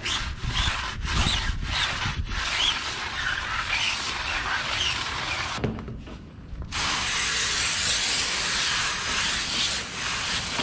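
Brush scrubbing a tyre coated in wheel cleaner, working it into a white foam, with strokes at about two to three a second. After a short pause about six seconds in comes a steady hiss.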